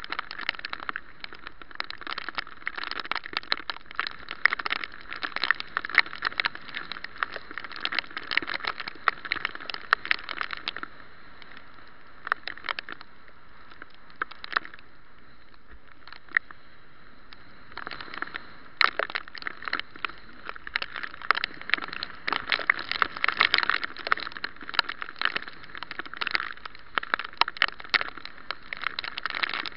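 Bicycle-mounted camera riding in heavy rain: dense, irregular clicking and crackling on the camera from raindrops and the ride. It thins out for several seconds about halfway through, then picks up again.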